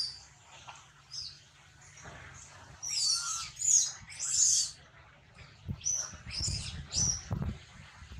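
Young macaque giving high, shrill squealing cries: a loud run of three cries about three seconds in, then three shorter shrill calls a couple of seconds later. Low thumps sound under the later calls.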